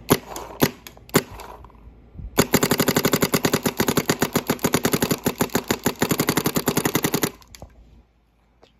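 Bob Long Reptile paintball marker firing on its poppet engine: three single shots in the first second or so, then a rapid, even string of shots lasting about five seconds. The poppet engine is a lot louder than the marker's spool engine.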